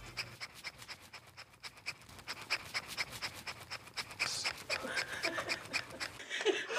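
Shake Weight dumbbell rattling rhythmically as it is shaken back and forth, about five quick clicks a second.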